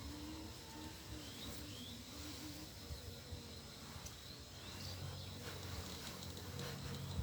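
Honeybees buzzing around an open hive as a faint, wavering hum, with a few light knocks as the wooden frames are pressed together.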